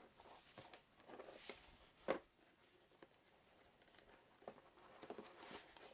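Faint rustling and scraping of a cardboard board-game box being handled and turned over on a wooden table, with one sharp knock about two seconds in.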